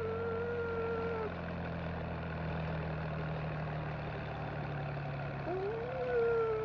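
An engine idling steadily, a low even hum. Two pitched tones each rise and then hold for about a second, one near the start and one near the end.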